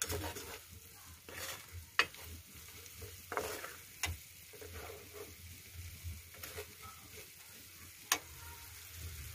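Onions and spices frying in oil in a stainless steel pan: a light sizzle under a plastic spoon stirring and scraping the pan. The spoon knocks against the steel several times, sharpest about two seconds in and near the end.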